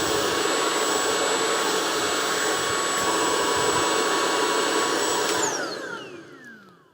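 Tineco Pure One X cordless vacuum running on max mode with a steady high whine, drawing air through its filter-cleaning attachment while the filter is spun against the brushes. About five and a half seconds in it is switched off, and the motor whine falls in pitch as it spins down.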